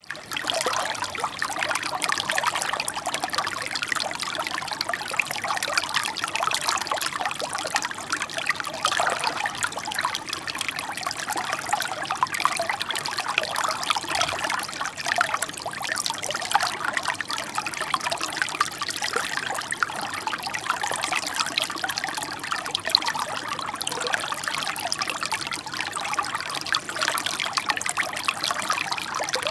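Shallow water running and trickling over stones: a steady, lively babble of small splashes that fades in at the very start.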